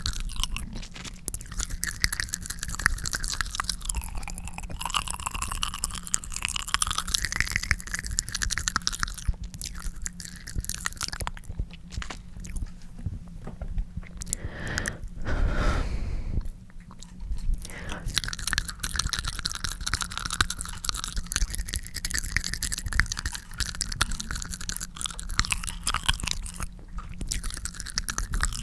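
Close-miked wet tongue smearing: the tongue slides and smacks around the mouth in a dense run of small wet clicks, with the pitch of the mouth cavity shifting as it moves. It breaks off briefly a little past halfway.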